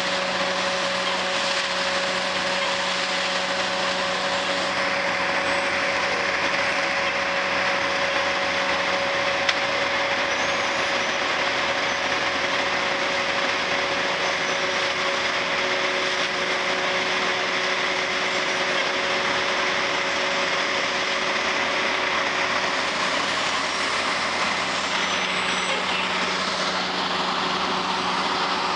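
Trailer-mounted leaf vacuum running steadily, its engine and fan giving a constant rush of air with a held hum underneath as it sucks in raked leaves through its intake hose.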